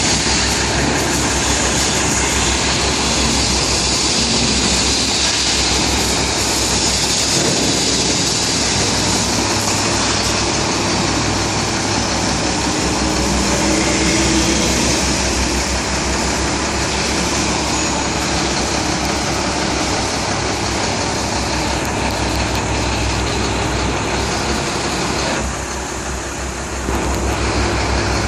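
Heavy diesel truck engine idling steadily, a low rumble under a constant hiss. The sound drops briefly for a second or so near the end.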